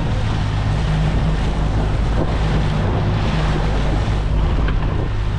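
Boat engine running steadily, a low hum, under heavy wind noise on the microphone and the wash of water.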